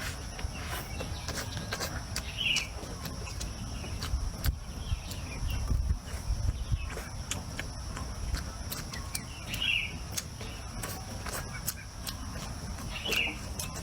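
Outdoor eating sounds: scattered sharp clicks of chopsticks and bowl along with chewing. Over them come short bird chirps, heard three or four times, and a steady high insect drone, with wind rumbling on the microphone.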